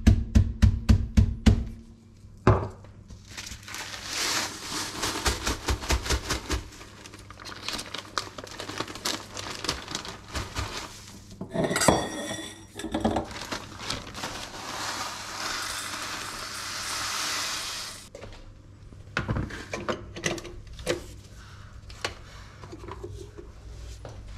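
A drinking glass knocking rapidly on crushed biscuits in a plastic zip-lock bag against the countertop, about four knocks a second, stops under two seconds in. Then comes a long crinkling of the plastic bag as the crumbs are handled. Near the middle, a stainless steel mixing bowl clanks and rings, and a few light knocks follow near the end.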